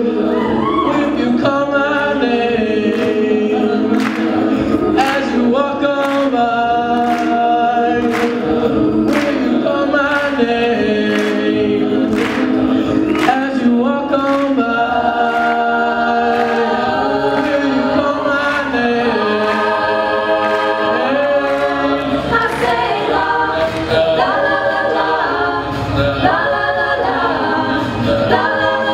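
An a cappella group of mixed male and female voices singing held chords in harmony, without instruments. A sharp beatboxed beat lands about once a second through the first half.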